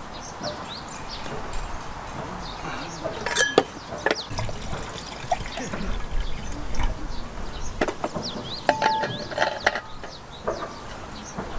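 Camping gear handled on a table: scattered clicks and knocks of metal and plastic, and liquid poured from a stainless vacuum flask into a small kettle. Birds chirp throughout.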